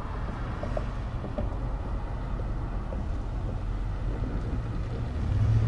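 Low outdoor rumble of wind and road traffic, with a few faint small ticks early on. About five seconds in, a vehicle's steady engine hum grows louder.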